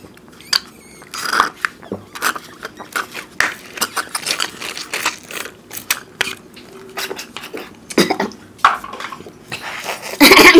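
Juice slurped and sucked through straws from small cardboard mango-drink cartons, with the cartons crinkling as they are squeezed and many short irregular clicks. A brief loud rasp near the end.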